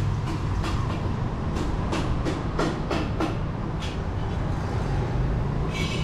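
Steady low rumble of street traffic with a run of sharp clicks or taps, thickest from about one and a half to four seconds in. A brief high tone comes near the end.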